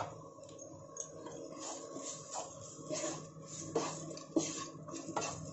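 Wooden spatula scraping and stirring a dry mix of fried onion, garlic and crushed peanuts in a non-stick frying pan: irregular rasping strokes about two a second, over a faint steady hum.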